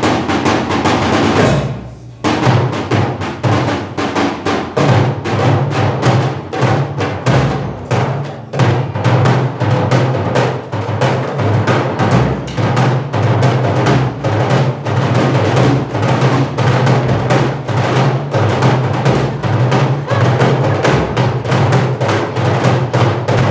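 Live hand percussion: a marching bass drum struck with a mallet and a goblet drum played by hand, beating out a fast, steady rhythm. The beat breaks off briefly about two seconds in.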